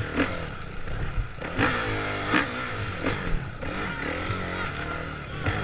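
Off-road rally motorcycle's engine revving up and down as it rides over rough, rocky ground, with a few sharp knocks from the bike hitting bumps.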